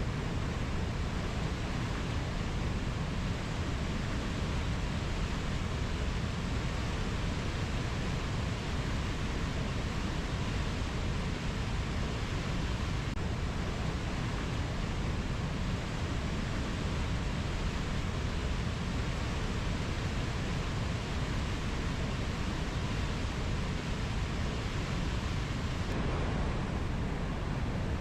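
Steady, even rushing noise of a rainforest nature-ambience recording, heaviest in the low end, with no distinct calls or strikes standing out.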